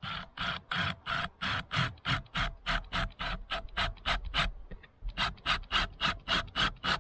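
A hand tool scraping back and forth on a wooden post in quick, even strokes, about three a second, with a short pause about five seconds in.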